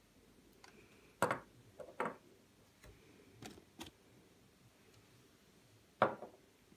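A few light clicks and knocks of small plastic models being handled and set down on a wooden tabletop, the loudest about a second in and near the end.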